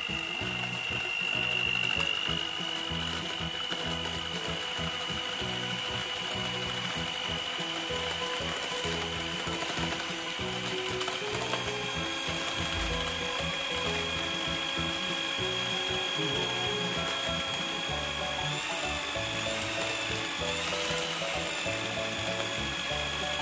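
Cosmos CM1279 electric hand mixer running steadily as its beaters whip an ice cream mixture, its motor giving a high whine that steps up in pitch about halfway through. Background music plays underneath.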